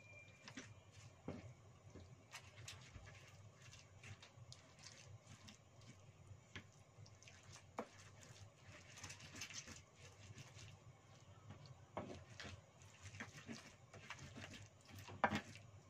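Pestle grinding and pounding sambal terasi in a cobek mortar: faint, irregular scrapes and soft knocks as the fried chillies, shallots and shrimp paste are crushed into a paste, with one sharper knock near the end.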